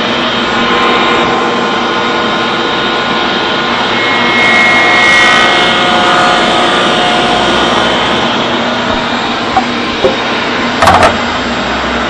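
Table saw motor and blade running steadily while the blade is cranked up into a scrap-wood sacrificial fence; the sound gets louder for a couple of seconds about four seconds in. A few short sharp knocks near the end.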